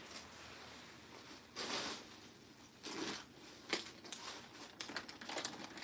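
Faint rustling and crinkling of plastic packaging and cloth being handled: a few short rustles, then a quick run of small crinkles near the end.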